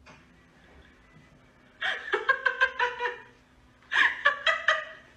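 A person laughing in two bouts of quick, pulsing giggles, the first about two seconds in and the second about four seconds in.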